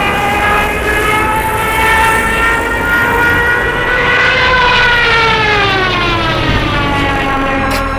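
Propeller aircraft engine droning loudly, its pitch holding steady at first and then sliding down over the last few seconds, like a plane passing by.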